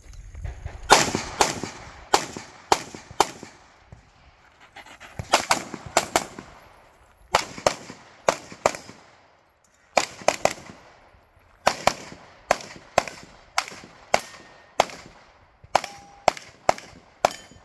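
Competition pistol fired rapidly on a USPSA stage: about thirty sharp shots in quick pairs and short strings, with pauses of a second or two between groups as the shooter moves between positions.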